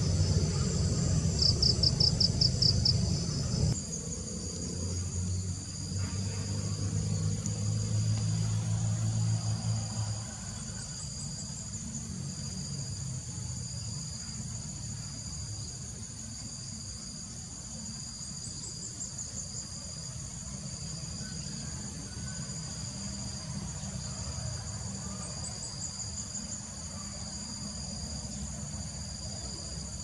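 Steady high-pitched insect chorus, with a brief fast trill about two seconds in. A low mechanical drone sits under it at first, loudest in the first four seconds and fading out about ten seconds in.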